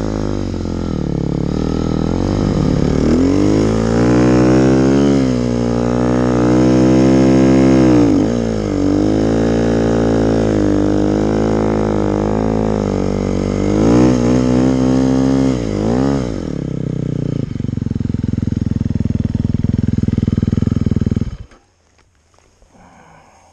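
Snow vehicle's engine under load in deep snow, its pitch rising and falling repeatedly with the throttle. About three-quarters of the way through it settles to a steady idle, then cuts off suddenly near the end: the engine is switched off.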